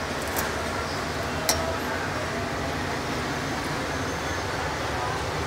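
Steady background noise of a busy street, with two short clinks, one about half a second in and a louder one about a second and a half in.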